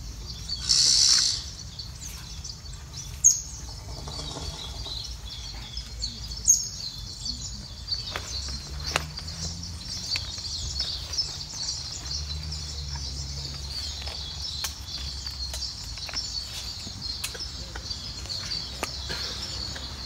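Outdoor ambience of birds chirping and calling over a steady high-pitched background chorus, with a louder burst of high sound about a second in and a few short sharp chirps.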